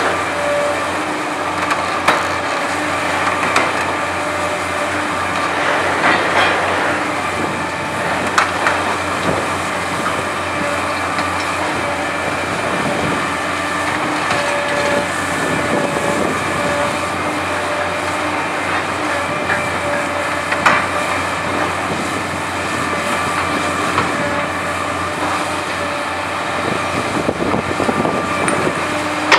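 Hitachi ZX870LCH-5 demolition excavator running steadily under load, engine and hydraulics droning with a pitched whine that comes and goes. Scattered sharp metal clanks and crunches as its Verachtert VT 60 shear works scrap steel and debris.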